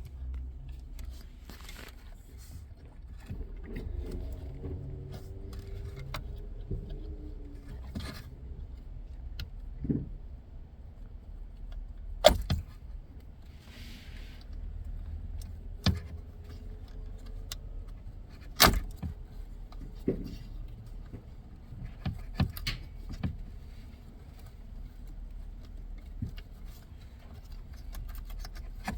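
Scattered sharp clicks, knocks and rattles of plastic wiring-harness connectors being unplugged and the factory radio/navigation unit being handled in a truck dash. The two loudest knocks come about 12 and 18 seconds in.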